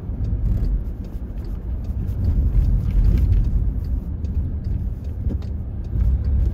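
Steady low rumble inside a moving car's cabin: engine and tyre noise while driving slowly along a city street.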